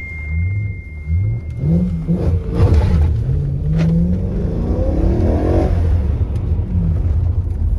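Stage 2-tuned BMW E90 M3's V8 heard from inside the cabin, accelerating hard. A short rev-up about two seconds in is followed by a long climb in pitch that drops off sharply near six seconds as the driver lifts or shifts, after which the engine runs on steadily.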